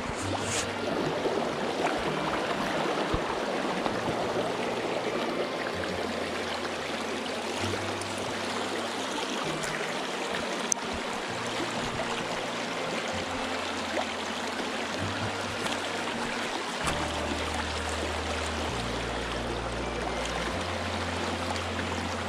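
Water of a shallow, rocky stream rushing over stones in a riffle, steady throughout. Under it runs background music, low bass notes stepping to a new pitch every second or two.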